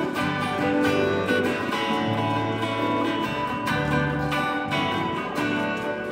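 Several electric and acoustic guitars strumming chords together in an instrumental break between sung verses, with low notes held under the strums.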